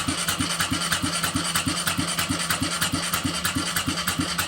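Honda Grom single-cylinder engine being cranked on its electric starter, turning over with an even rhythm of about three to four compression pulses a second but not catching, then cut off abruptly at the end.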